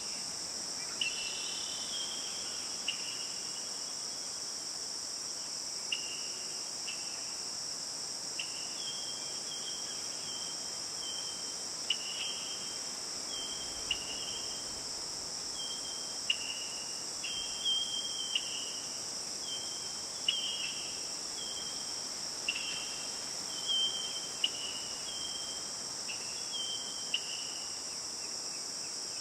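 A steady, high-pitched insect chorus, with short chirping notes that repeat every second or two.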